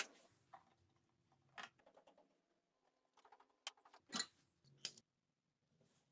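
Near silence broken by a few faint clicks and short rustles of small parts being handled.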